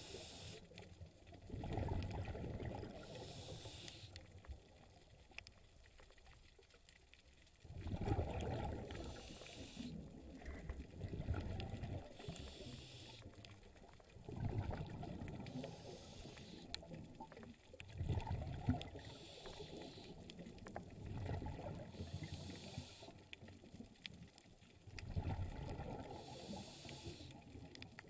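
Scuba diver breathing through a regulator underwater: a hiss on each inhale and a low bubbling rumble of exhaled bubbles on each exhale, repeating about every three to four seconds.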